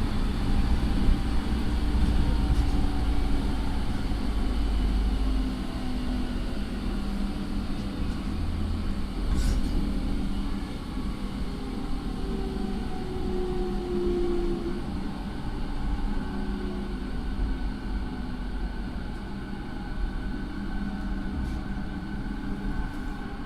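JR 209 series electric train car with a Mitsubishi IGBT inverter and MT68 traction motors under way: rumble of wheels on rail with the whine of the inverter and motors shifting in pitch, and a single click about nine seconds in.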